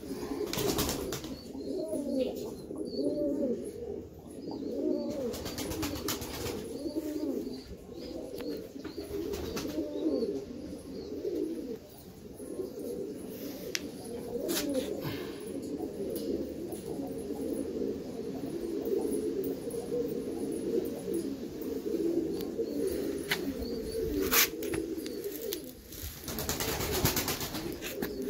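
Domestic pigeons cooing: several birds giving low, rolling, overlapping coos without a break. A few short bursts of noise cut across the cooing, the longest near the end.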